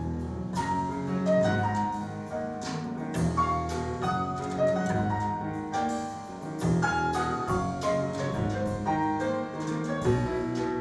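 Jazz piano trio playing: a grand piano carries a melody of short notes over upright double bass and a drum kit, with regular cymbal and drum strokes throughout.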